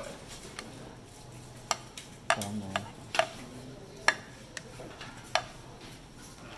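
Serving utensils clinking and tapping against stainless-steel buffet trays and a plate as rice is scooped and served: about eight sharp clinks at irregular intervals, the loudest near the middle.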